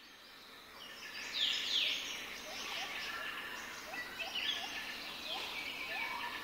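Birds chirping: a chorus of many overlapping high calls, fading in over the first second or two. A lower, short rising call repeats every half second or so.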